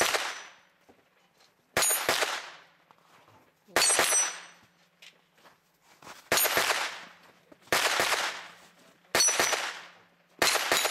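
Pistol-caliber carbine fired at steel targets at a steady pace: seven shots, about one every one and a half to two seconds. A brief high metallic ring comes with most shots as the steel is struck.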